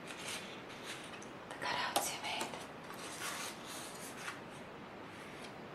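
Soft rustling and sliding of a cut construction-paper leaf stencil being picked up and laid onto watercolour paper, with a sharp tap about two seconds in. Soft whispering is mixed in.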